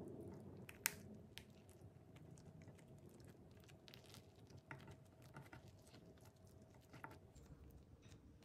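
Faint sticky crackles and small clicks of damp brown rice paper being rolled up by hand on a wooden cutting board, the sharpest tick a little under a second in.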